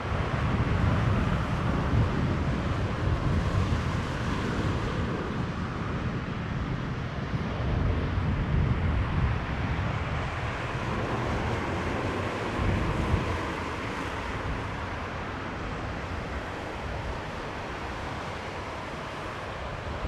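Airbus A320 airliner on approach to land: a steady jet rush with a low rumble, easing a little in the second half, with wind on the microphone.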